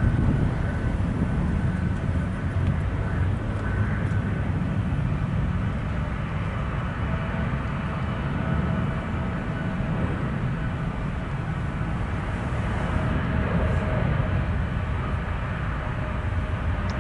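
Engines of a large jet airliner running steadily: a low rumble with faint steady whining tones above it.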